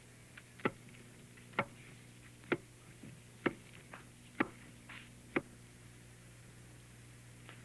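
Wooden pestle pounding in a tall wooden mortar (pilão): six strikes at an even pace, about one a second, that stop about five and a half seconds in, over a steady low hum.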